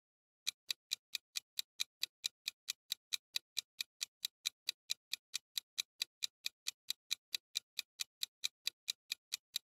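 Clock-ticking sound effect marking a quiz countdown timer: quick, even, sharp ticks at about four to five a second, starting about half a second in.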